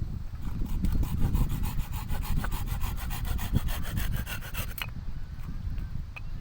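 Rapid rhythmic scraping on wood, about seven strokes a second, running for about four seconds and then stopping abruptly.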